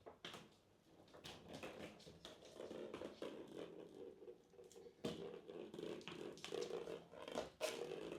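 Kittens at play: faint, irregular scratching and rustling from paws and claws on toys and the floor, with scattered light taps and clicks.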